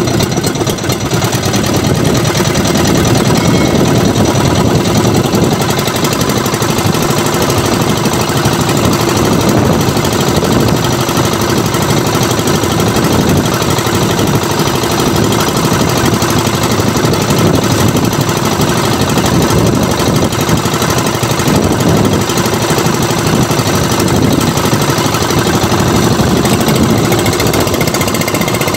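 Engine of an outrigger fishing boat running steadily with a fast, even pulse.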